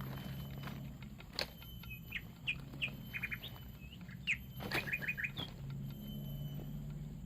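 Wild birds chirping: a run of short, quick chirps, some coming in fast groups of three or four, with a few sharp knocks in between.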